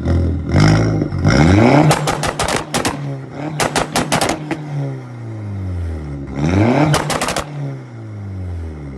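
Car engine revved hard in several quick blips through its exhaust. As the revs fall away, rapid crackling pops and bangs fire from the exhaust in three bursts.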